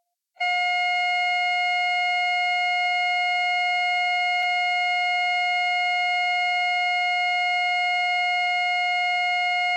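Heart-monitor flatline tone: a single steady electronic tone that starts about half a second in and holds without change. It is the signal that no heartbeat is being detected.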